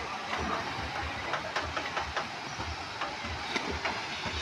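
Water rushing over the rocks of a small waterfall and stream, a steady noisy rush, with an uneven low rumbling and scattered light clicks and splashes under it.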